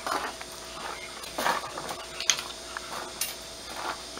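Steel rebar rods clinking and knocking together as they are handled, several short metallic hits, some of them ringing.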